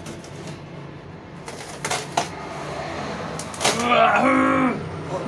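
Handling noise from a large cardboard carton, with a couple of short knocks about two seconds in, then a person's loud, drawn-out vocal sound with no clear words for about a second near the end.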